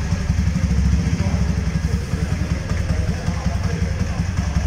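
A 2018 Jawa's 293cc single-cylinder engine idling steadily through its twin exhaust pipes, a fast, even low pulse.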